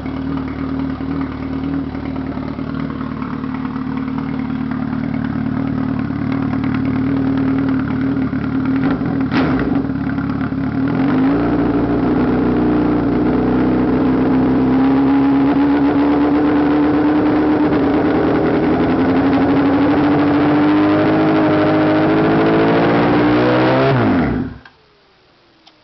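A 2007 Honda CBR1000RR's inline-four engine running through a custom muffler welded straight to the headers: first idling, then held at higher revs that creep slightly upward from about halfway. Near the end the revs fall and the sound stops abruptly. The exhaust is a little loud, louder than the owner wanted.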